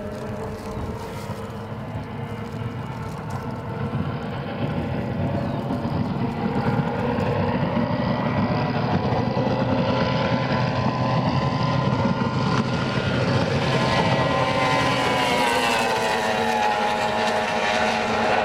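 Racing powerboat engine running at high revs, growing louder as the boat approaches and dropping in pitch about two-thirds of the way through as it passes.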